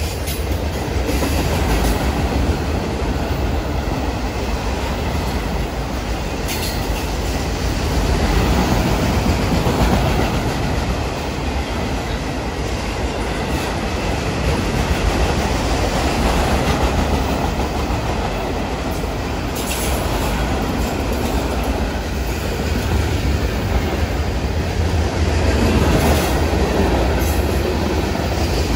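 A loaded freight train's cars rolling past close by: a continuous rumble and clatter of steel wheels on the rails, swelling a little louder now and then as the cars go by.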